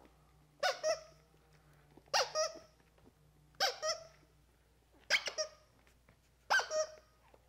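Plush squeaky dog toy squeezed five times, about every second and a half, each squeeze giving a quick double squeak. It is a squeaker being sounded for newborn puppies' sound stimulation.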